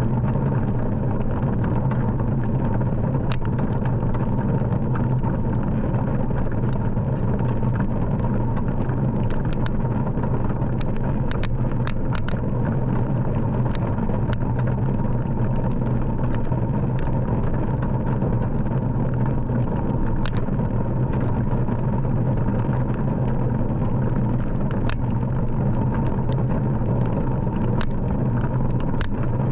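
A steady motor hum that holds the same level throughout, with scattered faint clicks over it.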